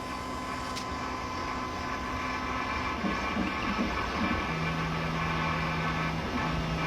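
3D Elite computerized key-cutting machine starting its cutting cycle on a new key blank, its motors running with a steady hum. A click comes about a second in, and about midway a steady low motor tone sets in that stops briefly twice as the carriage moves.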